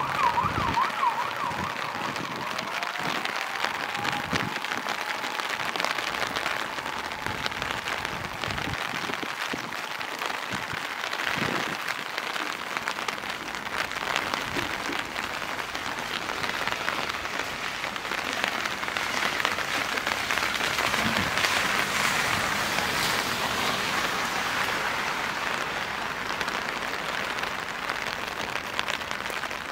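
Steady rain hissing on a city street. A siren warbles at the start, then fades away over the next few seconds.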